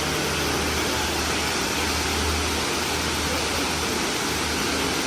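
Waterfall: a steady, even rush of falling water, with a low rumble underneath that swells and fades.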